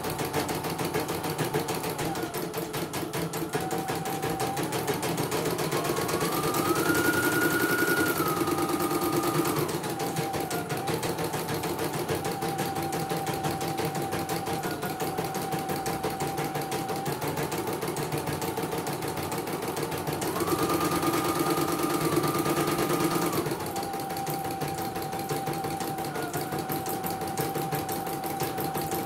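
CNY portable computerised embroidery machine stitching a design, a fast steady run of needle strokes over its motor whine. Twice the whine rises in pitch and gets louder for a few seconds as the machine speeds up, then drops back.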